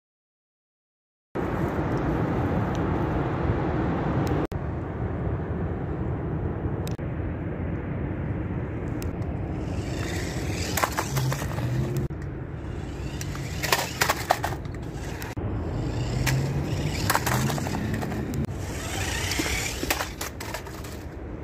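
Cheap battery-powered New Bright toy RC buggy driving over rough concrete pavement: a steady rolling rattle of its plastic wheels and electric motor, with a few sharp knocks and scrapes as it bumps over cracks and edges. It starts after about a second of silence.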